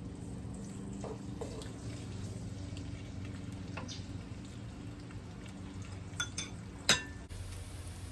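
Thinly sliced red onions frying gently in oil in a wok, stirred with a wooden spatula, with a few light scrapes and taps against the pan and one sharp knock near the end. A steady low hum runs underneath.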